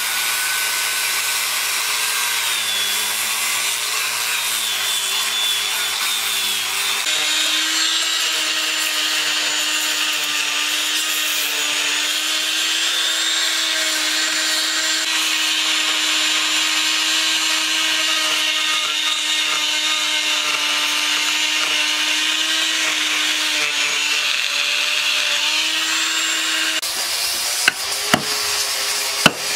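Electric power tools grinding a hardwood block: first an angle grinder with a sanding disc, then, from about seven seconds in, a higher, steady whine from a small rotary burr tool carving the wood. Near the end the motor stops and a hammer strikes a chisel three times in sharp knocks.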